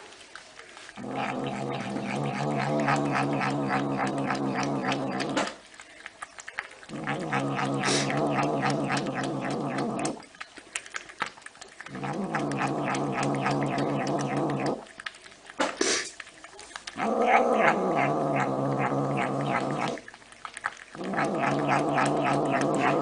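A domestic cat yowling: five long, drawn-out, low-pitched calls in a row, each three to four seconds long, with short pauses between.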